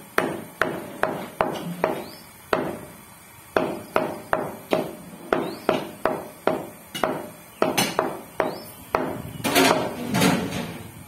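Meat cleaver chopping goat meat on a wooden chopping block: a steady run of sharp chops, about two to three a second, with a louder, rougher stretch near the end.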